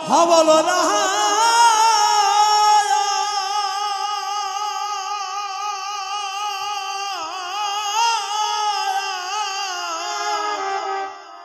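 Male padavali kirtan singer holding one long, wavering, high note into a microphone over harmonium. The note dips in pitch about halfway through and breaks off near the end.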